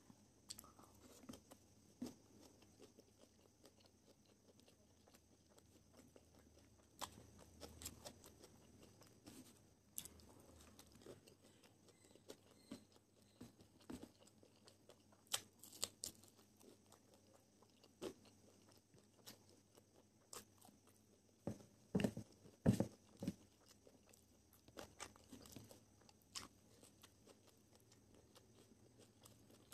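Faint close-up eating sounds of a person chewing and crunching a meal of fried rice and crispy fried chicken, with scattered sharp clicks and smacks; a pair of louder clicks comes about three-quarters of the way in.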